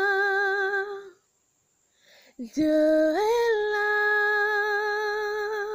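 A woman singing a slow French worship song, unaccompanied, in long held notes with a steady vibrato. The first note ends about a second in; after a short breath she comes back on the word 'Dieu' with a note that climbs a step and is held.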